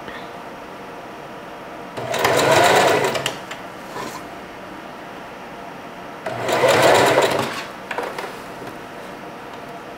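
Singer 4423 Heavy Duty sewing machine stitching a hair weft onto a wig cap in two short runs of about a second and a half each, a rapid needle clatter over the motor's hum, with a pause between.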